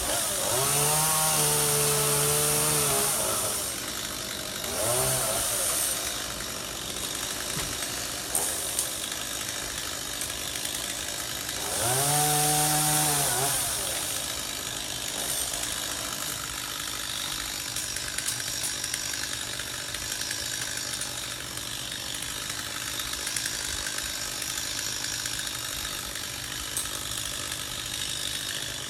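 Chainsaw engine revving up and dropping back in three bursts, the longest about three seconds near the start and another about two seconds near the middle, running at a lower idle in between and for the rest, with a few sharp knocks.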